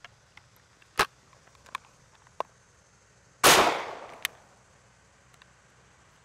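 Gunshots: a single sharp crack about a second in, then a louder, fuller shot about three and a half seconds in that rings out and dies away over about a second. Light clicks fall between and just after the shots.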